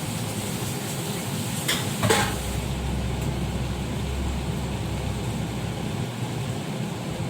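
A steady low hum, with two short sharp knocks close together about two seconds in.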